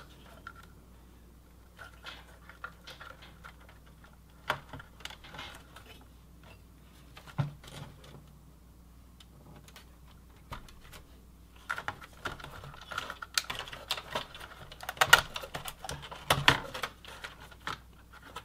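Hands working inside a Dell OptiPlex 780 small-form-factor desktop case during reassembly: irregular clicks, taps and light rattles of cables and parts being plugged in and fitted. They are sparse at first and come thicker and louder in the last few seconds.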